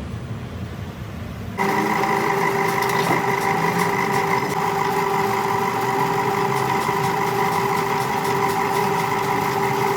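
A manual metal lathe running, a steady mechanical whine with several held tones over a noisy hum. It jumps abruptly louder about a second and a half in, after a lower rumble.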